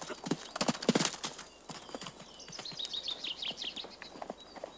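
Horse's hooves thudding on a sand riding arena as it canters toward a jump, a quick run of hoofbeats in the first second and a half, then fainter.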